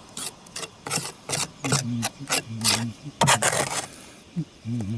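Repeated short, irregular rasping scrapes from hand work on roof tiles.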